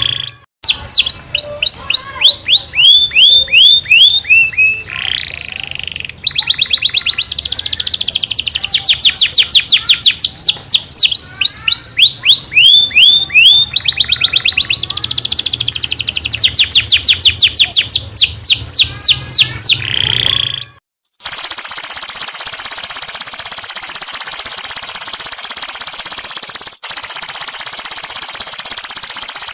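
Songbird song from a masteran training recording: rapid series of sharp falling whistles, repeated phrase after phrase. About 21 seconds in it cuts abruptly to a continuous dry buzzing rattle.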